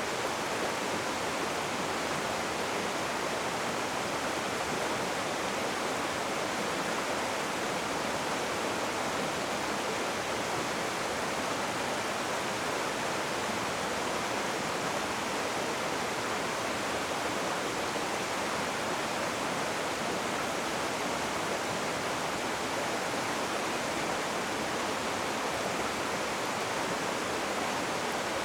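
Rushing river water, a steady even rush of flowing water with no changes.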